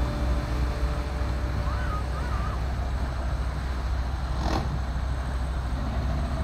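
Steady low outdoor rumble with an even hiss. A short chirping call comes about two seconds in, and a brief sharp click a little past the middle.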